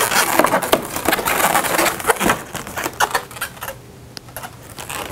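Latex modelling balloons rubbing and crackling against each other as a white 160 balloon's two ends are tied together around the twisted figure, a dense run of short clicks that dies down after about three seconds.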